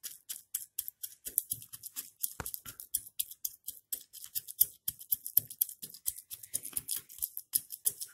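Back end of a wooden rolling pin pounding a warm sesame-and-jaggery mixture in a steel bowl, pressing it into tilkut: rapid crisp crunching taps, about four or five a second.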